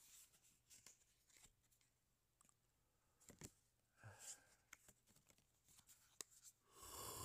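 Magic: The Gathering cards being handled and flipped through in the hand, heard as scattered faint clicks and slides of card stock. Near the end a breathy exhale lasts under a second.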